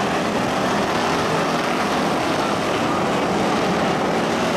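Engines of a pack of figure-8 race cars running hard together at racing speed: a loud, steady wall of engine noise that does not let up.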